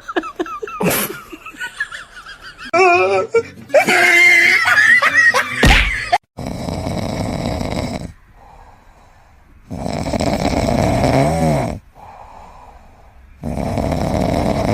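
Loud, wheezy snoring from a sleeping pet, a long loud breath about every three and a half seconds with a quieter breath between. Before it, for about the first six seconds, come a few brief pitched, wavering voice-like sounds.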